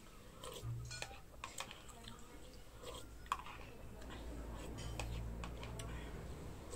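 Metal spoon clinking and scraping against a ceramic soup bowl in short, irregular clicks while soup is eaten from it, with one sharper clink about three seconds in. A low rumble swells in the background about halfway through.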